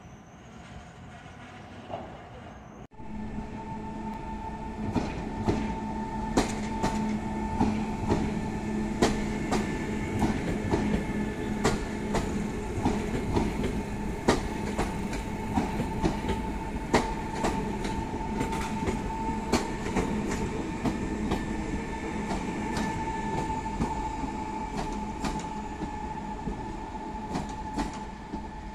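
Electric multiple unit pulling out of the station: a steady motor whine with two held tones, over scattered clicks and knocks from the wheels running over rail joints. It starts suddenly about three seconds in, after a quieter stretch.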